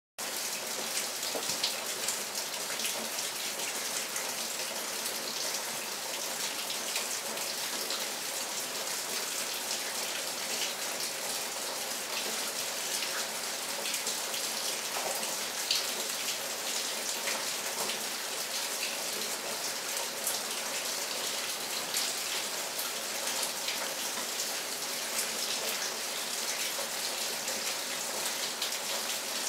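Steady rain falling, an even hiss dotted with many small ticks of single drops, starting abruptly.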